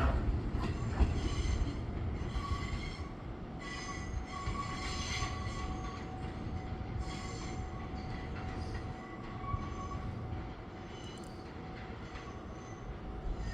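Fujikyu 6000 series electric train running on the rails with a steady rumble, wheels squealing in thin high tones that come and go, gradually growing quieter.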